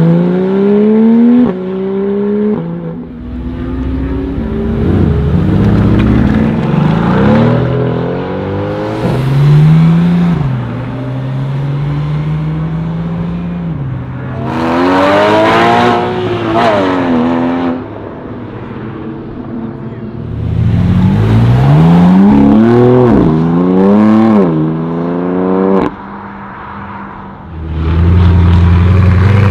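Supercar engines revving and accelerating hard, one car after another, each rising in pitch and dropping back at every upshift. There are upshifts about one and a half and two and a half seconds in, a steadier engine note in the middle, and loud full-throttle runs about halfway through, again past twenty seconds, and near the end.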